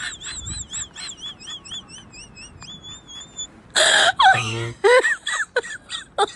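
A high, wavering whistle-like tone over a quick patter of ticks, which stops about three and a half seconds in. Then a sudden loud burst and a person's voice crying out in wavering wails.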